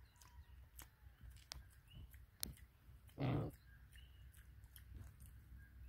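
Piglet rooting with its snout in loose dirt: scattered small clicks and crunches of soil and debris, with one short, loud grunt a little over three seconds in.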